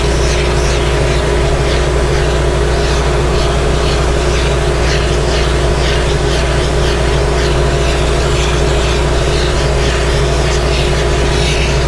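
Carpet extractor or wet vacuum motor running steadily with a strong hum, with irregular hissing strokes as the wand draws moisture out of soaked car carpet.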